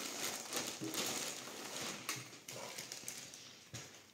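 Clear plastic zip bag crinkling and rustling as a folded T-shirt is pulled out of it, dying away in the last second.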